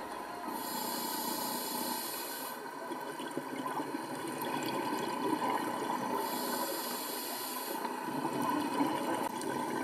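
Underwater sound of a scuba diver breathing through a regulator: two hissing breaths about six seconds apart, with crackling bubble noise between them.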